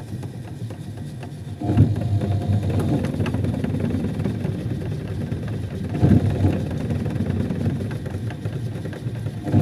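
Hitachi SF-160KJS top-loading washing machine's drive motor, V-belt and clutch gearbox running from underneath: a steady low mechanical hum that swells louder about two seconds in and again about six seconds in, with a few light clicks.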